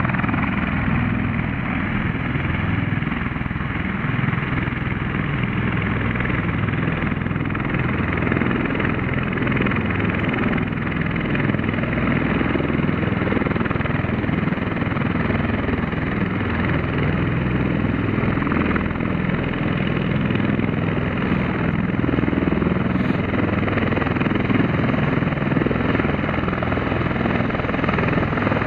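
Bell Boeing V-22 Osprey tiltrotor running on the runway: a steady drone of its turboshaft engines and proprotors, with a low, even throb under it.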